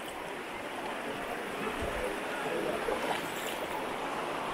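Shallow river rushing steadily over a rocky bed.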